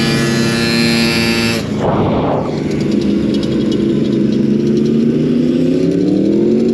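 Motorcycle engine running at steady speed, broken by a short burst of noise about two seconds in. It then slows with its pitch falling, and revs back up near the end.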